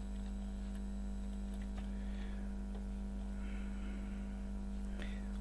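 Steady electrical hum, a buzz made of many evenly spaced tones, with a faint click or two.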